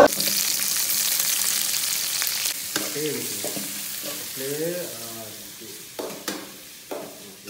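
Sliced onions, green chillies and curry leaves sizzling in hot oil in an aluminium kadai as a spatula stirs them. The onions have just gone into the oil: the sizzle is strongest at the start and dies down, with a few clicks of the spatula against the pan near the end.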